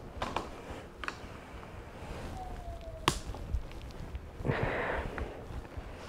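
Phillips screwdriver working the screws of a motorcycle's handlebar switch housing: a few light clicks, one sharper click about three seconds in, and a short breathy rush near the end.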